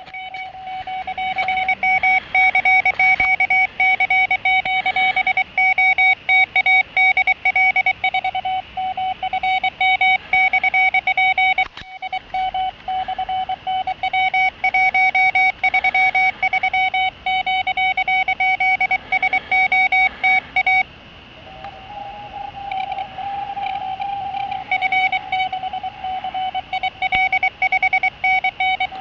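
Morse code (CW) coming from a portable amateur radio transceiver: a single tone keyed rapidly on and off in dots and dashes, sent by an intruding station labelled a pirate that has occupied the operating frequency. About two-thirds of the way through, the tone drops in level and shifts slightly higher in pitch.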